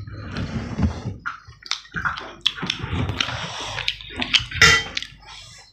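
Close-up eating sounds: wet chewing, lip smacks and the squelch of fingers mixing rice and curry, in short irregular bursts, the loudest a little over four and a half seconds in.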